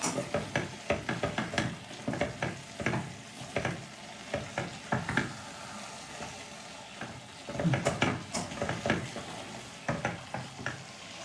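A utensil stirring and scraping food in a frying pan, over a steady sizzle as the liquid cooks off. The clatter comes in busy spells, near the start and again about two-thirds of the way through.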